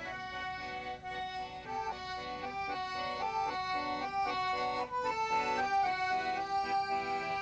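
Instrumental music: a melody of held notes, changing every half second or so, over sustained chords.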